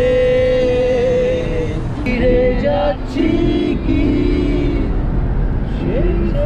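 Singing, with long held notes and short phrases, over the steady low rumble of a car on the road.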